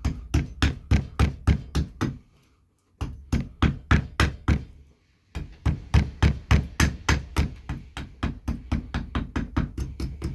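Carving axe taking quick, light chops at a green maple spoon blank braced on a wooden chopping block, about four strikes a second. The strikes come in three runs with two short pauses.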